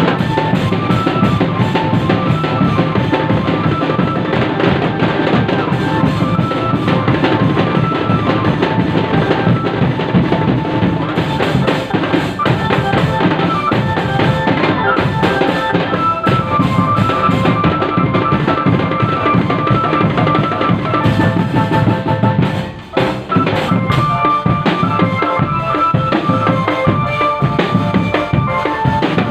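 Drum band playing a dense, driving beat on bass drums and snare drums, with snare rolls and rim hits, and a melody of short high notes over it. The playing drops out briefly about three-quarters of the way through, then carries on.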